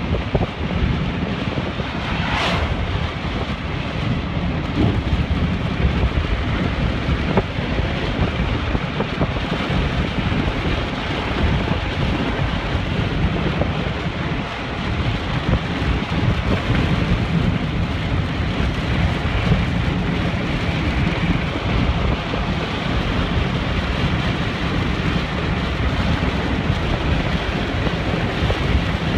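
Wind-driven heavy rain beating on a car, heard from inside the cabin, with gusty wind buffeting and a low rumble underneath; a brief whoosh about two and a half seconds in.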